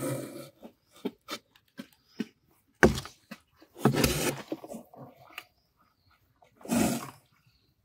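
Handling noise around a styrofoam fish box: irregular sharp clicks and knocks with a few short scraping rustles, the loudest knock about three seconds in.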